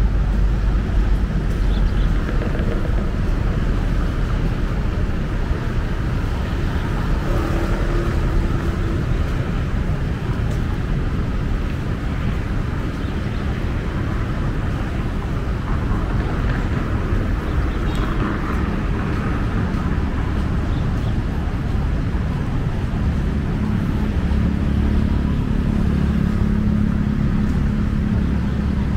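Urban street ambience: a steady wash of road traffic from passing cars and motorbikes, with a deeper engine hum building in the last few seconds.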